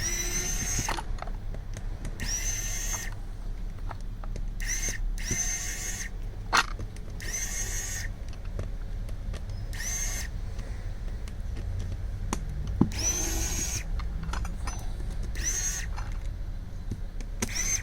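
A small handheld power tool's motor whirring in short bursts, about nine times, each spinning up in pitch and then holding steady, with a couple of sharp clicks in between.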